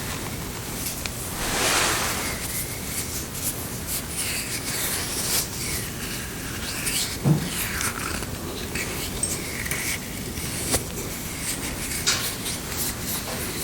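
A smooth object being rubbed in a series of strokes, giving short squeaky gliding tones, with a whoosh of rubbing about two seconds in. A low knock about seven seconds in is the loudest moment, and a few sharp clicks follow.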